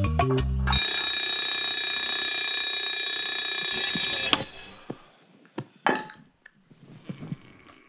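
A steady, high-pitched alarm-bell ringing lasts about three and a half seconds and is cut off abruptly with a knock. A few scattered clicks and knocks follow.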